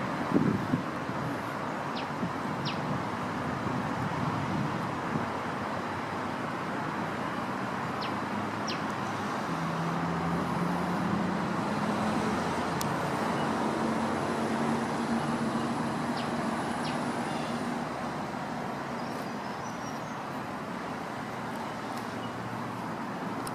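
Steady road traffic noise from a busy highway, with a vehicle's low engine hum swelling and passing through the middle. A few thumps come right at the start, and short high chirps sound in pairs now and then.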